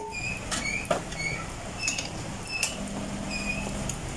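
Espresso-making clatter: a few metal clicks and knocks as the portafilter is handled and fitted to the espresso machine, with a string of short high squeaks and a brief low hum near the end.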